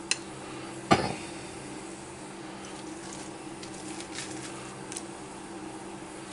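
Seeds being scooped out of a halved spaghetti squash by hand: a sharp click at the start, a louder knock about a second in, then faint scattered scrapes and clicks, over a steady low hum.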